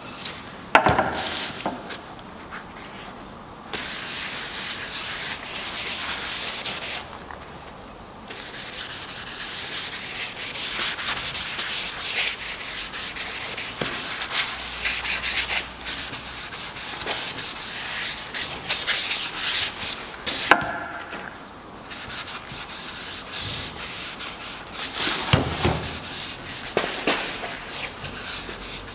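Hand sanding of white oak: sandpaper rubbed back and forth over the wood in stretches, broken by short pauses. A few knocks from the workpiece being handled come about a second in, around twenty seconds in and near twenty-five seconds.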